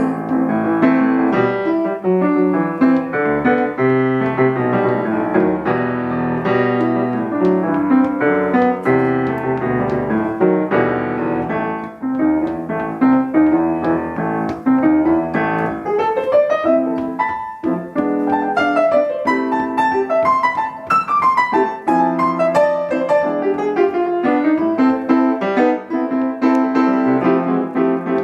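Piano playing an instrumental break in a song, without singing, with quick runs up and down the keys in the second half.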